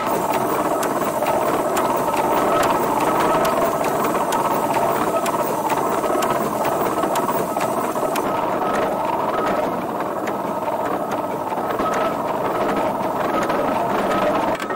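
1916 Ransomes, Sims & Jefferies steam traction engine running, a steady fast mechanical clatter with a faint steady high tone over it.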